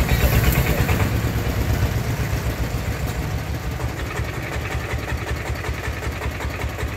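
Single-cylinder diesel engine of a công nông farm truck running with a fast, even thumping while it strains on a tow chain to drag a stuck truck. It is louder for the first couple of seconds, then eases a little.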